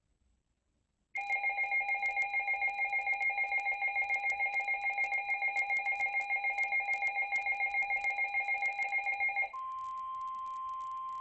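Emergency weather alert tones ahead of a broadcast severe thunderstorm warning: about a second in, a loud two-pitch alert tone with a rapid pulse starts and runs for about eight seconds. It then switches to a steady single-pitch tone, the NOAA Weather Radio warning alarm tone, for about the last two seconds.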